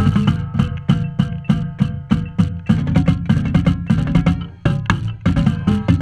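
Marching tenor drums (quints) struck in quick, uneven rhythmic strokes close to the microphone, over the sustained pitched sound of the rest of the marching band playing.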